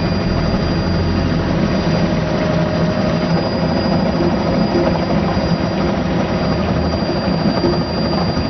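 Helicopter engine and rotor noise heard from inside the aircraft: a loud, steady rush with a faint high whine running through it.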